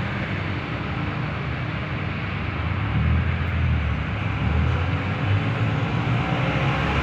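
Steady rumble of motor-vehicle noise, a little louder from about three seconds in.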